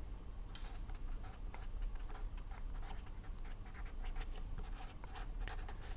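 Pen writing strokes, a quick run of faint scratches.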